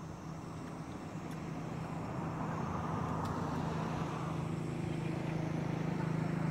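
A motor vehicle's engine running with a steady low hum, getting gradually louder.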